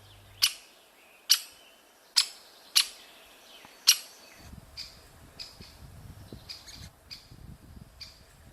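Great spotted woodpeckers calling at the nest hole: five sharp, loud, very short call notes about a second apart, then from about halfway a busier run of quieter short high calls, the begging of the young at feeding.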